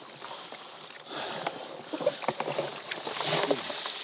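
Crayfish net being handled on a small boat: water splashing and dripping, with scattered clicks and knocks, and a louder rush of water about three seconds in.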